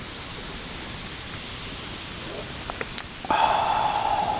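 A drink can's pull tab clicks open about three seconds in, followed by about a second of steady fizzing hiss.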